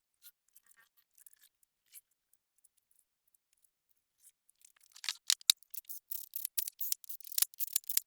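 Ratchet of a 3/8-drive torque wrench clicking rapidly as engine bolts are run down and tightened toward 22 foot-pounds. A few faint ticks come first, then dense fast clicking starts about five seconds in.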